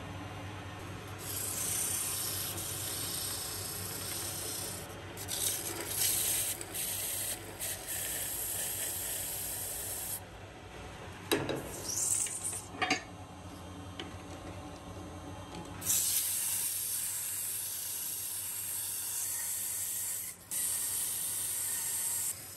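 Abrasive cloth pressed against a drill chuck spinning in a metal lathe: a steady rubbing hiss over the lathe's low hum. The sanding eases off for a few seconds near the middle, where a few short scrapes come through, then resumes, with a brief break near the end.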